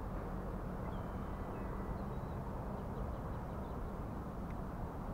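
Steady low outdoor background noise with a faint hum, and a few faint, short high-pitched bird calls in the first half.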